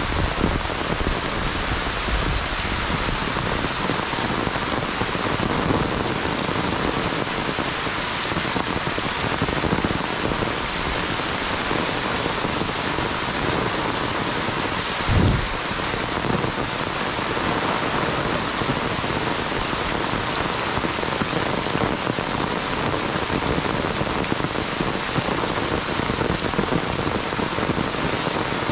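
Heavy monsoon rain falls steadily on the umbrella overhead and the wet ground, an even hiss of rain with no let-up. About halfway through there is one brief, dull low thump.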